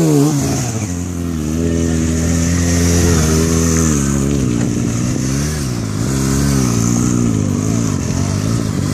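Sport motorcycle engine revving up sharply, then held at fairly steady high revs with small throttle dips and rises while the bike is ridden on its rear wheel in a wheelie.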